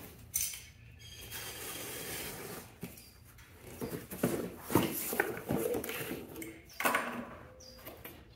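A cardboard shipping box being opened by hand: a knife slicing through the packing tape, then cardboard flaps and paper crackling and rustling, with a sharper knock near the end.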